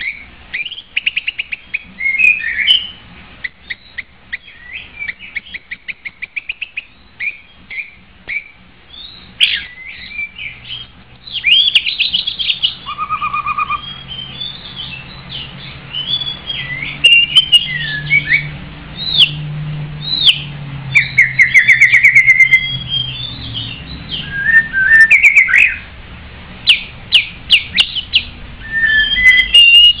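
White-rumped shama singing a varied song: loud clear whistles, fast trills and rapid rising and falling notes, one phrase after another.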